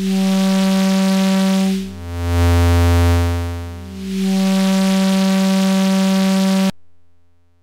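Two modular-synthesizer voices crossfading back and forth about every two seconds, a low tone alternating with a higher, brighter one. The fade is driven by a Make Noise Contour envelope and its mirrored, inverted output through a dual VCA. Near the end the sound cuts off abruptly.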